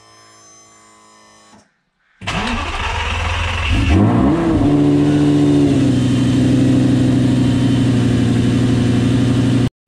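2004 Lamborghini Gallardo's V10 engine starting up on fresh oil, run briefly to circulate it through the dry sump during an oil change. It catches about two seconds in, the revs rise and flare, then drop and settle into a steady idle, and the sound cuts off abruptly near the end.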